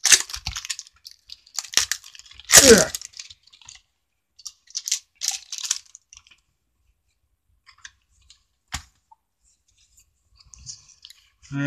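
Foil booster-pack wrappers crinkling and being torn open in short bursts, the loudest tear about two and a half seconds in, then a single sharp click before it goes quiet.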